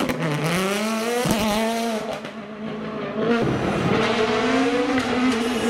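Ford Fiesta WRC rally car's turbocharged 1.6-litre four-cylinder engine revving up hard as it accelerates out of a hairpin, pitch climbing then dropping at a gear change. About three and a half seconds in, a second World Rally Car, a Hyundai i20 WRC, is heard, its engine revving up and down.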